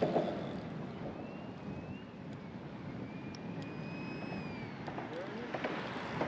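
Steady rushing noise of wind and sea water at the shoreline, with faint thin whistling tones that drift slightly in pitch about a second in and again through the middle.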